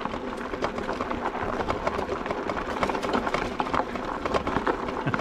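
E-bike tyres rolling slowly over a loose gravel track, with small stones crunching and clicking under them. A faint steady hum comes from the motor, which is pulling the bike up a steep hill on throttle alone and is labouring.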